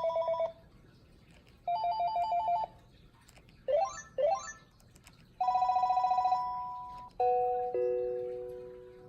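Electronic ringtones of a Panasonic KX-TG7471 cordless phone played one after another: a short trilling two-note ring, then another, two quick rising chirps, then a trill that holds on one note before a few lower notes step down and fade.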